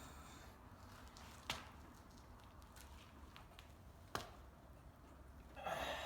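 Quiet sawmill floor with a steady low hum, two sharp knocks of wood a few seconds apart, and a brief scraping rush near the end.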